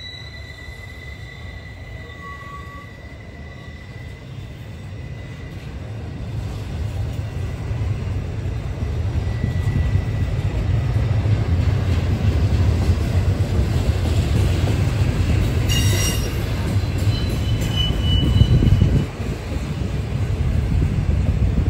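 Double-stack intermodal freight cars rolling past on jointed steel rail with a dense, steady rumble of wheels and trucks that grows louder after the first few seconds. High wheel squeals ring out briefly, and there is a sharp clank about three-quarters of the way through.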